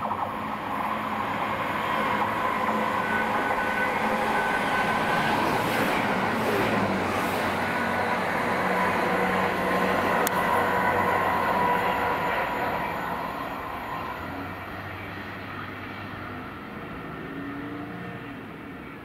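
A Chiltern Railways Class 165 diesel multiple unit running on the line, with its diesel engines and wheels on the rails loud and steady. Over the last several seconds the sound fades as the train moves away.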